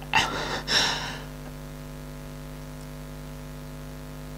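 A person crying: two shaky, breathy sobbing breaths in the first second, then only a steady low electrical hum.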